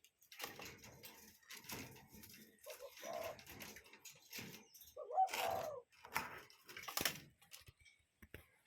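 Cuckoo calling: a series of low hooting notes, about one a second, mixed with rustling noise.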